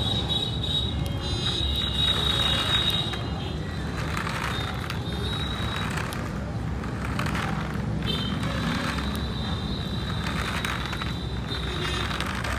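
Small DC gear motor of a toy car whining steadily as the car drives over concrete, cutting out for about two seconds near the middle and starting again. A low steady rumble runs underneath.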